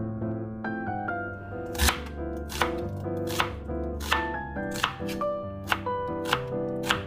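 Chef's knife slicing through an onion and striking a plastic cutting board: about eight sharp chops, roughly one every 0.7 seconds, starting about two seconds in. Background piano music plays throughout.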